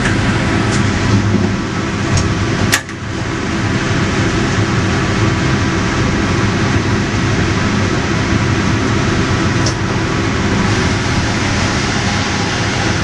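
Sawmill machinery around a log carriage running steadily, a loud dense mechanical noise with a steady motor hum. A sharp clank comes about three seconds in.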